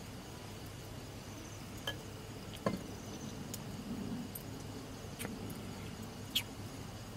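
Four short, sharp clinks of tableware or utensils, spaced a second or more apart, over a faint steady chirring of insects.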